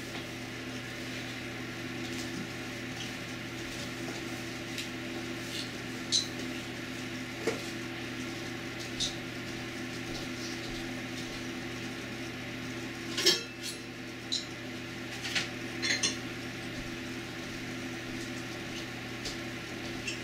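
Steady low electrical hum with scattered light clicks and clinks of small hard objects being handled. The loudest cluster of clinks comes a little past the middle, with a few more shortly after.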